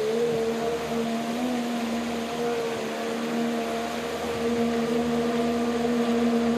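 Mercury 90 hp Sport Jet outboard running at a steady speed, its engine tone rising slightly at the start and then holding steady.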